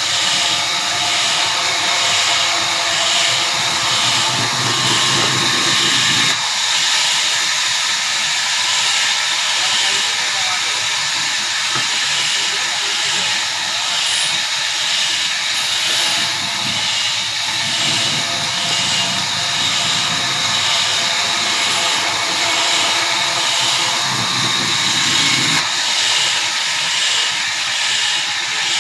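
Large sawmill saw running and cutting through a red walnut log: a loud, steady hiss with a faint regular pulse, and a lower rumble that comes and goes.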